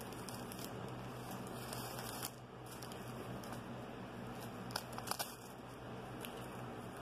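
Newspaper crinkling and tearing as a teething kitten chews and claws at a strip of it, with a quick cluster of sharp crackles about five seconds in.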